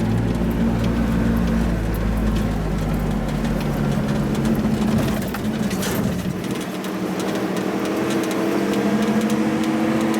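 A 1988 Toyota 4x4's engine running steadily while driving on a rough dirt road, with scattered rattles and knocks. The deep rumble drops away about six seconds in, and the engine pitch rises near the end.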